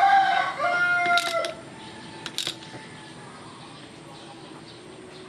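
A rooster crowing in the first second and a half, then a couple of sharp metallic clicks from the ratchet and socket on the clutch boss nut.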